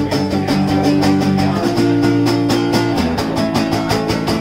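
Acoustic guitar strummed in a quick, steady rhythm of about five strokes a second, changing chord about a third of the way through and again about two-thirds in.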